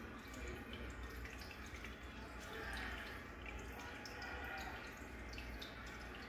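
Aquarium water trickling and dripping, with many small drips and a steady low hum underneath.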